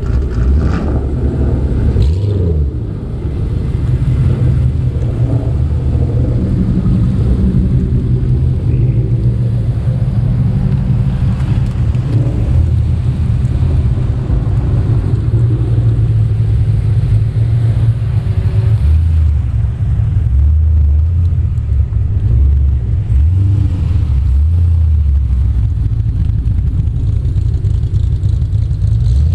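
Ford Mustangs' engines and exhausts rumbling as the cars drive slowly past one after another. There is a short dip in loudness about three seconds in.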